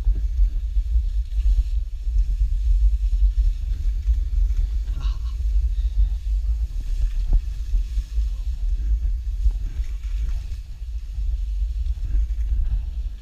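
Wind buffeting the microphone of a downhill skier's action camera: a heavy, unsteady low rumble.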